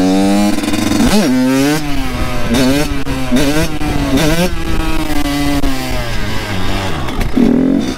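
Kawasaki KX 85 single-cylinder two-stroke engine running hard under the rider, its revs climbing, then dropping sharply and picking back up several times in quick succession before running steadier.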